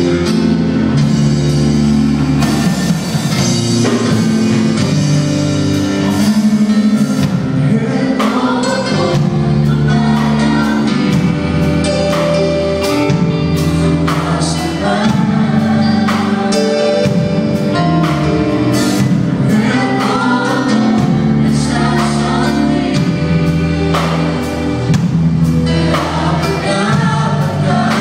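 Live church worship band playing a gospel song: a group of singers with drum kit and band accompaniment.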